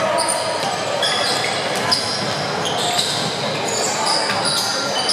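Basketball being dribbled on a hardwood court, with short high squeaks of sneakers and a steady murmur of crowd voices echoing in a gym.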